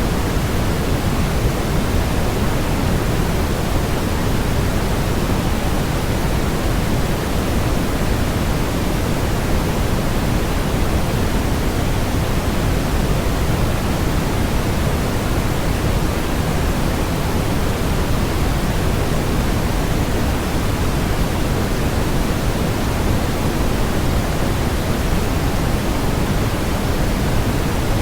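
Steady, unchanging synthetic noise sold as white noise: a constant hiss, heavier in the low end than in the treble.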